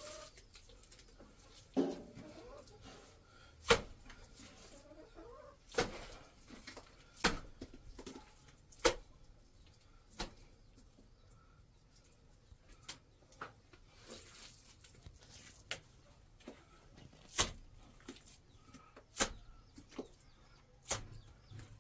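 Irregular sharp knocks, about a dozen, spaced one to two seconds apart, with faint bird calls between them.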